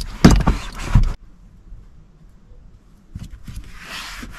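Foam applicator pad rubbing dashboard conditioner into the car's plastic dashboard trim, a steady scrubbing hiss that starts about three seconds in, after some loud handling knocks in the first second and a short pause.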